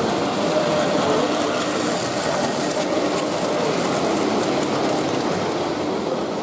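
Model train running on an exhibition layout's track, under a steady hubbub of people talking in the hall.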